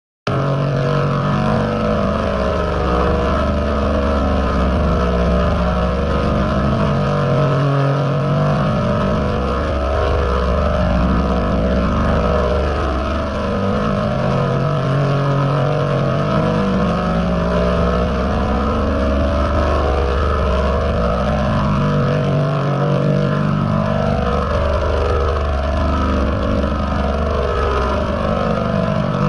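Loud, heavily distorted, digitally processed audio in the style of a "G Major 40" meme effect. It is a dense, continuous wash with deep steady hum tones that cut in and out, and curving swoops that repeat every few seconds.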